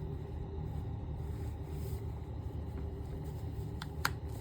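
Steady low background rumble, with two short clicks near the end, the second one louder.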